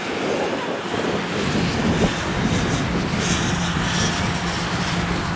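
Steady engine drone over a noisy haze, settling onto one steady low pitch from about two seconds in.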